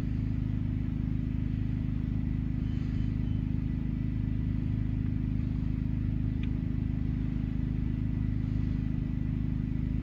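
Bobcat T595 compact track loader's diesel engine idling steadily, freshly cold-started in freezing weather after glow-plug warm-up.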